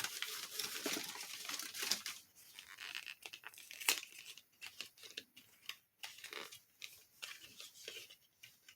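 Packing paper crinkling and tearing as it is pulled out of a small shipping box, a dense rustle for about two seconds, then scattered crackles that grow sparser.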